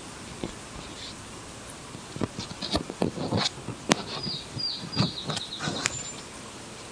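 Open-air shoreline ambience with a steady hiss. About two seconds in, a run of sharp clicks and knocks starts and lasts about four seconds, and a bird gives three short, high, falling chirps near the middle.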